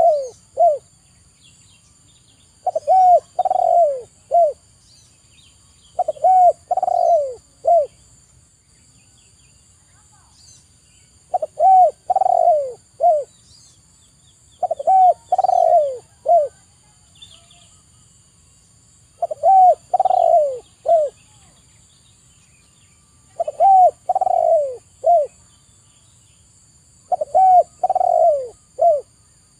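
Spotted dove cooing: a phrase of four or five short coo notes, each dropping in pitch, repeated about every three to four seconds, with one longer pause a little before the middle.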